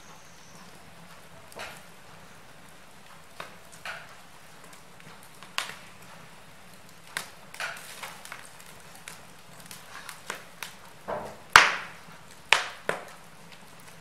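Wood fire burning in an open fireplace: irregular crackles and sharp pops from the logs over a faint steady hiss, coming more often and louder in the second half, the loudest pop near the end.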